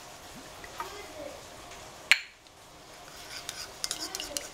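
A single sharp clink about two seconds in, then a metal spoon clinking quickly and repeatedly against a small ceramic bowl while stirring a mustard and olive oil dressing, from about three and a half seconds on.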